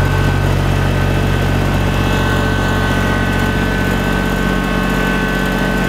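Kubota BX2660 compact tractor's three-cylinder diesel engine running steadily as the tractor spreads dirt from a loaded box blade, with a steady high whine over the engine note.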